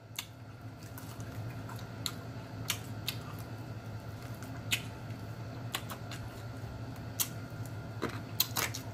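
Close-up eating sounds: chewing with sharp, wet mouth clicks and lip smacks at irregular intervals, over a low steady hum.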